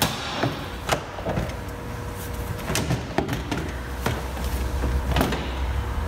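Plastic wheel-opening molding on a 2nd-gen Honda Ridgeline bedside being pulled off: a series of sharp plastic snaps and clicks at irregular intervals as its retaining clips release, over a low steady hum.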